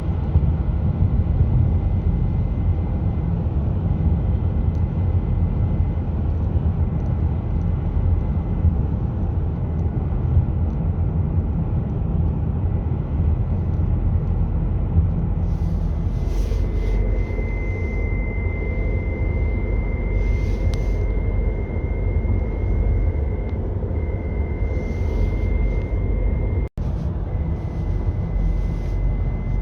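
Car cabin at highway cruising speed: a steady road and engine rumble, with a thin, high-pitched whistle over it that grows louder a little past the middle. This is a 2018 Audi A6 C7 1.8 TFSI whose whine seems to come from the automatic gearbox area at 90–95 and 120–125 km/h under throttle. It sounds electrical, and the owner suspects a sensor, relay or wire picking up electrical interference, cause unknown.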